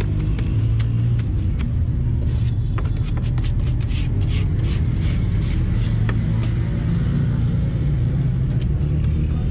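Steady low rumble of nearby motor vehicles. From about two seconds in to about six and a half, a quick run of light slaps and taps rides over it as the paratha dough is slapped and stretched by hand.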